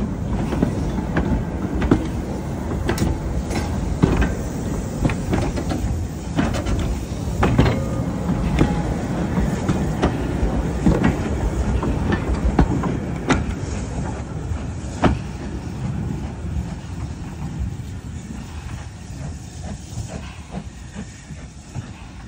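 A steam-hauled goods train rolls past as it pulls out: the wagons rumble along with irregular clacks and knocks from the wheels and running gear. The sound fades away as the brake van draws off into the distance.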